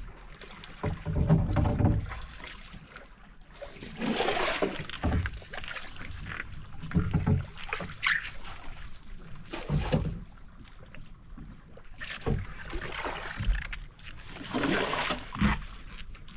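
A small bangka being paddled through calm water: a splash with each stroke every two to three seconds, mixed with low knocks against the hull.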